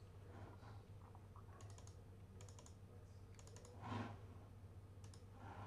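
Faint, scattered clicks of computer keys, with a brief soft noise about four seconds in.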